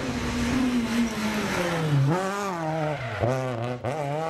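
Rally car engine at full effort: its note falls as the car slows for a bend, then climbs in hard rising pulls as it accelerates away, cut by quick gear changes about three and four seconds in.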